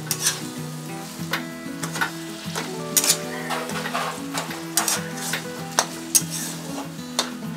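Flat metal spatula scraping and knocking against a metal kadai, about one or two strokes a second, as urad dal paste is stirred into sizzling oil.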